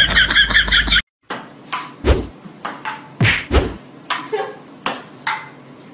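Ping-pong ball bouncing and knocking on a table-tennis table, a string of sharp clicks at irregular spacing as a cat bats at it. Before that, a loud pitched sound cuts off about a second in.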